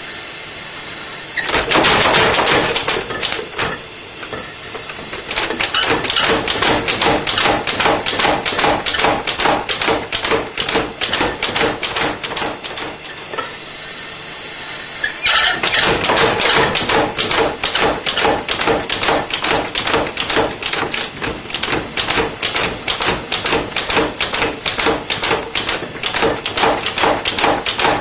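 Rapid, evenly paced hammer blows on hot iron being forged into blacksmith tongs, about four a second with a ringing tone under them. They start about a second and a half in, ease off twice, and pick up again around fifteen seconds in.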